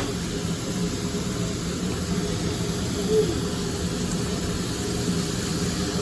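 Steady hiss of food sizzling on a hibachi griddle, over a low steady hum.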